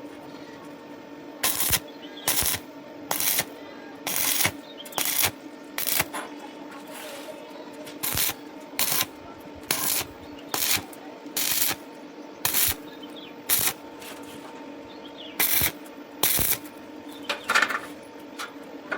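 Short, sharp metal-on-metal strikes, roughly one a second, over a steady electrical hum, as iron is worked in a welding workshop.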